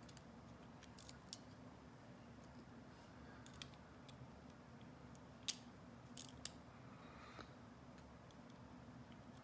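Faint, scattered metallic clicks of a pick and tension wrench working the serrated pin stack of a five-pin GEGE lock, the loudest about five and a half seconds in, over a low steady hum.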